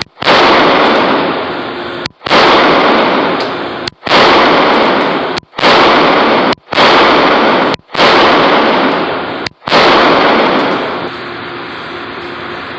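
Walther PPQ pistol fired seven times at uneven intervals of one to two seconds, each shot echoing and dying away slowly in the indoor range, with a longer pause after the last.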